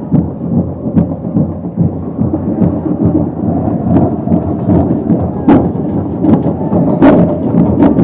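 Loud stadium crowd at a football match: a dense, rumbling mass of voices, with sharp clicks and pops scattered through it, more of them in the second half.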